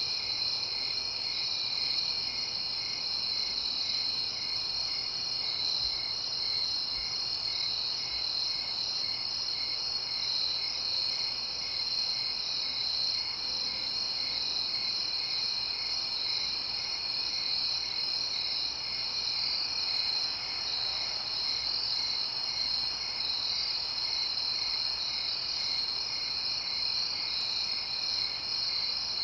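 Chorus of crickets: a steady high trilling, with one cricket chirping in an even rhythm about twice a second.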